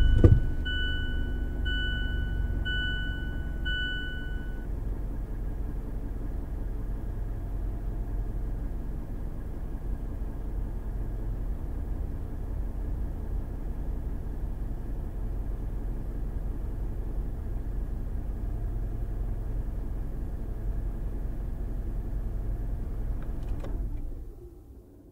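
Mazda CX-5 engine heard from inside the cabin, just catching after being started and then idling steadily. A dashboard chime beeps repeatedly over the first few seconds. Near the end the engine is switched off and the idle dies away.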